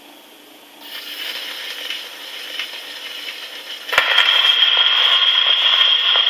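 Surface crackle and hiss of a Silvertone 78 record as the Sonora Trovatore phonograph's needle runs in the lead-in groove. About four seconds in there is a click, and the orchestra accompaniment starts with held chords.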